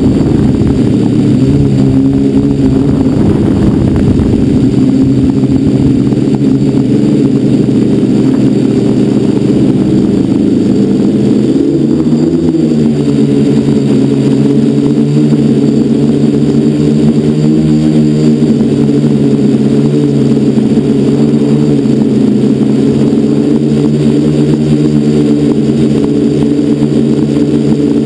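Electric motors and propellers of an FPV quadcopter buzzing in flight, heard from the camera on board, their pitch shifting up and down with the throttle. Wind rumble on the microphone for the first dozen seconds.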